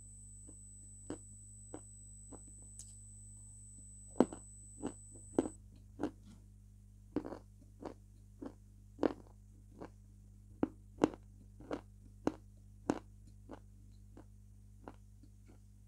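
Close-up mouth sounds of someone eating soft food: wet lip smacks and chewing clicks, irregular, about one or two a second.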